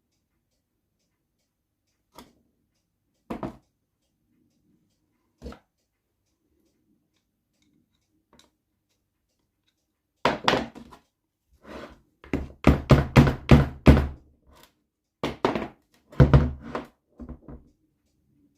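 Hammer blows, struck with the non-metal part, on the aluminium crankcase of an NSU Quickly two-speed moped engine to split the stuck case halves apart. A few single knocks, then from about ten seconds in a run of quick, repeated blows.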